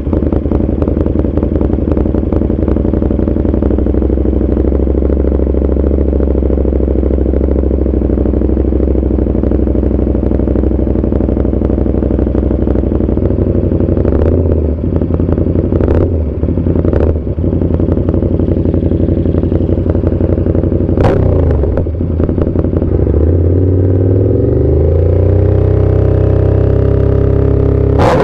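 KTM Super Duke 1290 R's V-twin engine through an Austin Racing V3 150 mm exhaust, idling loudly and unevenly, then blipped briefly a few times. About 23 seconds in it revs up and is held at a steady higher speed, the 4,000 rpm stage of a decibel test, dropping right at the end.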